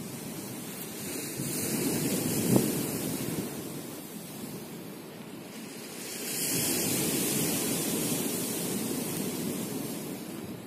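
Sea waves washing onto a pebble beach, swelling twice, with wind on the microphone and a single knock about two and a half seconds in.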